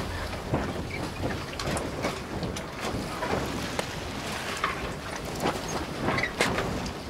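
Harbour or seaside ambience: a steady wash of wind and water with many scattered small knocks and clicks, like a moored boat creaking and tapping.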